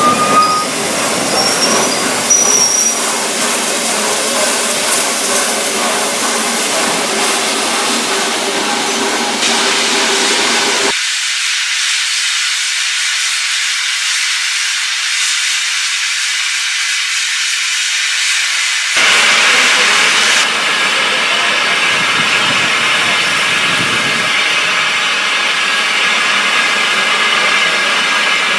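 Steam locomotive Tornado (60163) hissing steadily as steam blows from its cylinder drain cocks, with a louder gush about twenty seconds in.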